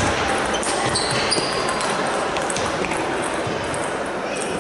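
Table tennis balls clicking off bats and tables at irregular intervals, over a steady din of voices and play from many tables in a large sports hall.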